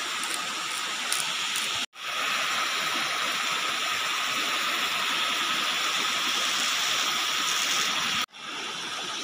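Shallow river water rushing over rocks: a steady hiss, with a faint steady tone under it. The sound cuts out abruptly twice, about 2 seconds in and near the end.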